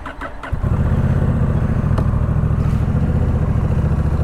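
Honda Rebel 1100's parallel-twin engine firing up about half a second in, then settling straight into a loud, steady idle.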